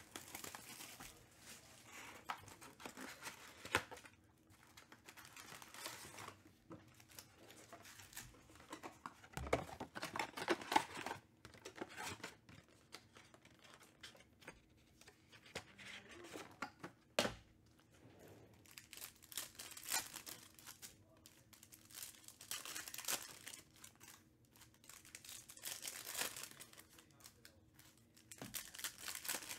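Panini Select basketball hobby box and card packs being torn open by hand: repeated bursts of ripping and crinkling wrapper, busiest about ten seconds in, with one sharp click a few seconds later.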